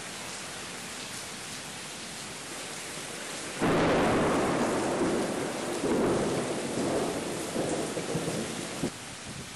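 Steady rain hiss, then about three and a half seconds in a loud rumble of thunder comes in suddenly over the rain. It swells twice more and cuts off abruptly near the end, leaving the rain alone again.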